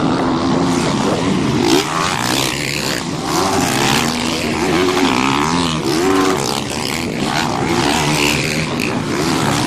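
Dirt bike engines revving, their pitch repeatedly rising and falling as the riders accelerate and shift, over a steady rushing noise.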